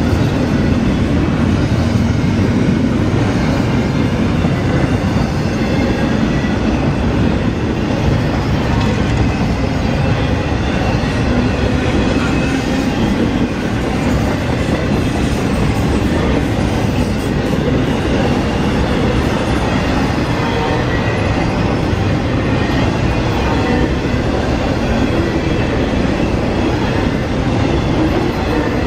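Double-stack intermodal freight train cars rolling past at close range: a loud, steady rumble of steel wheels on the rails.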